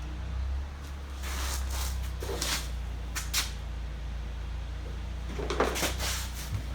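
Scraping and clicking of metal parts and tools being handled while suspension brackets and spacers are fitted, in two short bouts with a sharp click between them, over a steady low hum.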